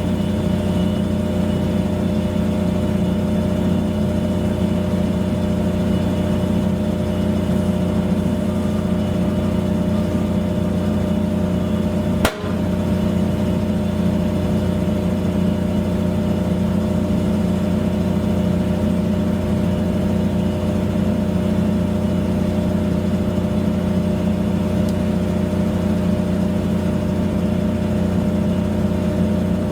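A steady motor hum, unchanging in pitch, with a single sharp click about twelve seconds in.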